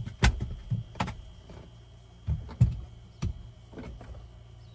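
Truck seat being handled as its back is folded down: a string of sharp clicks and dull knocks, about seven in all, irregularly spaced.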